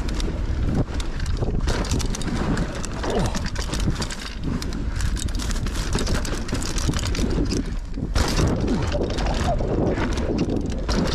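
Electric mountain bike riding fast down a dirt jump trail, heard from a handlebar-mounted camera: wind buffeting the microphone, tyres rolling on dry dirt, and the bike rattling and knocking over bumps and landings.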